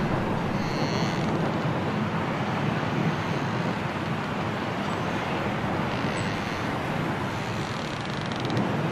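Strong storm wind blowing steadily, an even rushing noise with no clear rise or fall.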